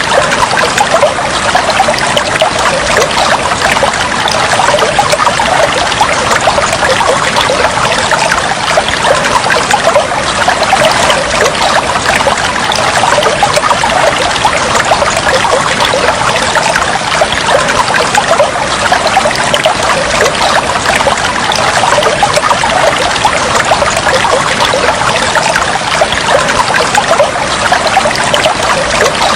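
Water flowing and trickling steadily and unbroken, a dense even babble with no pauses.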